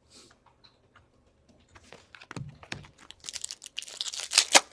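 A trading card pack wrapper being torn open and crinkled, with the crackling getting louder over the last couple of seconds.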